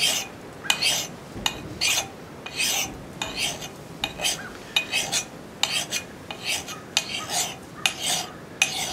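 Flat axe file rasping across the steel cheek of a Council Tool 24-inch boys axe in short strokes, about two to three a second, thinning the cheek behind the bit.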